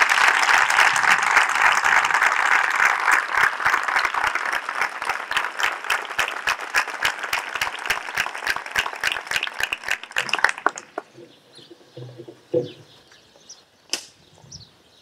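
Crowd of seated people applauding, dense at first, then thinning into scattered separate claps that die away about ten seconds in.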